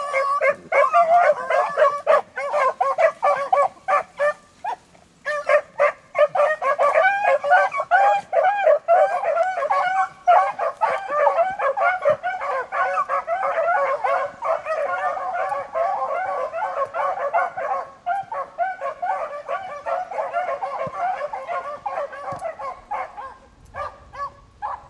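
A pack of beagles baying as they run a rabbit's scent trail, many voices overlapping. The chorus breaks off briefly about five seconds in, then carries on thick and thins out near the end.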